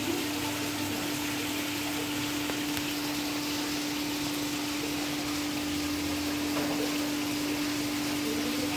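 Steady rush of running water with a constant low hum.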